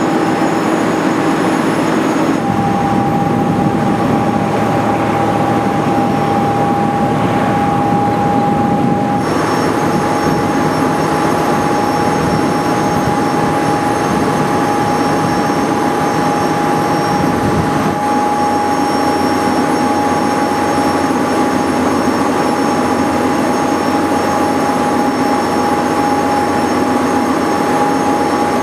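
Steady drone of a passenger ferry under way: engine noise mixed with the churning of its wake, and a steady whine running through it from about two seconds in.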